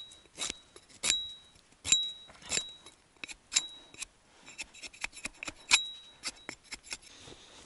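Hatchet chopping and splitting thin sticks into kindling: a series of sharp chops, each with a short metallic ring from the hatchet head, roughly one a second at first, then a run of quicker, lighter taps.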